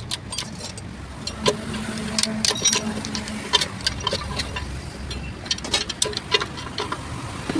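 Repeated metallic clinks and taps of tools and steel parts being handled, some ringing briefly, over steady workshop background noise.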